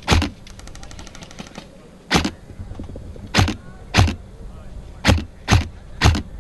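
Airsoft rifle firing single shots: seven sharp cracks at irregular intervals of half a second to two seconds. A faint rapid rattle of about fifteen clicks a second runs briefly about half a second in.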